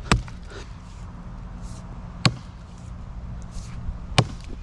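Axe chopping into the base of a standing tree trunk of dead, rotten wood: three sharp strikes about two seconds apart.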